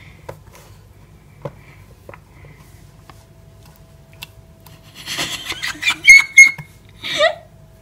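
A few faint clicks and rustles of fingers poking through almonds in a plastic tub. About five seconds in come loud shrieks and squeals of disgust, then a short gliding cry near the end.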